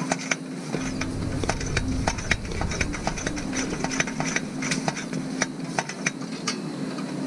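Irregular sharp metallic clicks and light rattles from a camping lantern being handled at its base, with a faint low hum under them.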